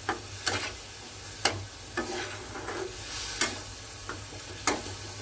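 Ground onion, ginger-garlic and chili paste sizzling in hot oil in a kadai while a spatula stirs it, with about six scrapes of the spatula against the pan at uneven intervals. The masala is being roasted until its water cooks out and the oil separates.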